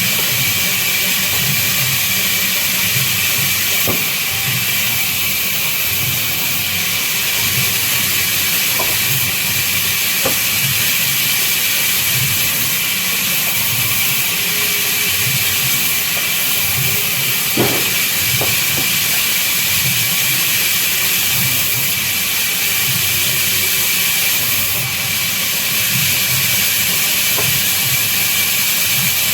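Band saw running and cutting babool (acacia) wood: a steady loud hiss over a low, pulsing motor rumble, with a few faint clicks.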